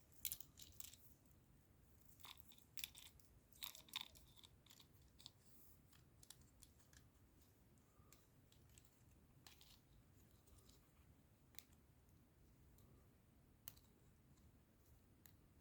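Faint, scattered clicks and light rattles of small plastic Lego Technic pieces being handled and pressed together, busiest in the first few seconds and then only an occasional click.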